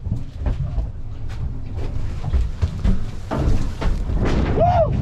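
Low rumble of wind on the microphone with scattered knocks and clatter aboard a fishing boat, and a brief rising-and-falling tone near the end.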